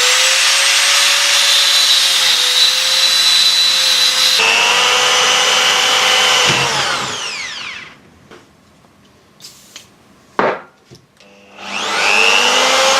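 High-speed grinder cutting back a sheared bolt stub in a steel wiper linkage: a steady high whine with grinding noise that shifts tone a little about four seconds in, then winds down with a falling whine. After a few seconds' pause with a couple of clicks, it spins up again near the end.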